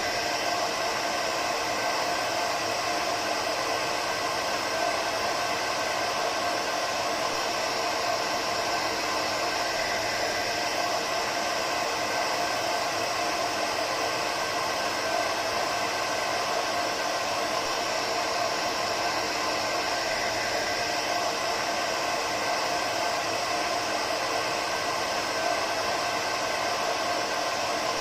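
Hair dryer running steadily, a continuous even blowing hiss with a faint steady motor hum.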